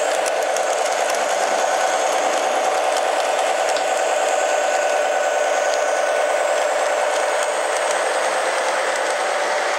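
Model diesel switcher locomotive running along the track, its electric motor and gearing giving a steady whine, with faint clicks from the wheels on the rails.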